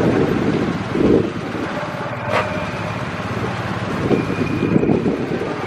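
A police motorcycle and a column of coaches driving slowly past. Engines run under steady road noise, which swells as the vehicles pass close, once about a second in and again around four to five seconds in.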